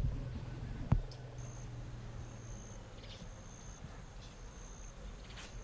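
Forest insect calling: a high, thin trill repeated in short phrases of about half a second, five or six times. A single sharp knock sounds about a second in.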